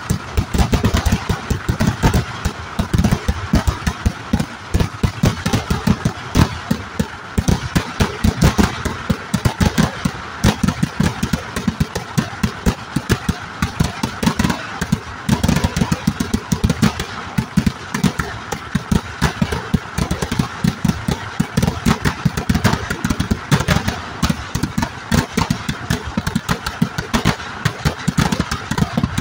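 Eeduvedi firework barrage: a long, unbroken run of firecrackers going off in rapid succession, many sharp bangs a second with no pause.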